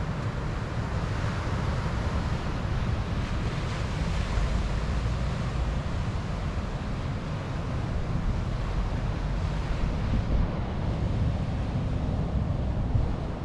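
Sea surf breaking and washing up a beach of round pebbles (mongdol), a continuous rushing wash that swells and eases, with wind rumbling on the microphone.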